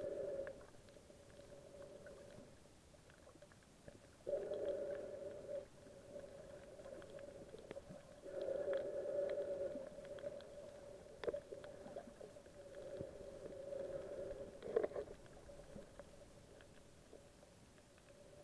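Muffled sound recorded underwater: a steady hum that swells and fades about every four seconds, with a few faint clicks.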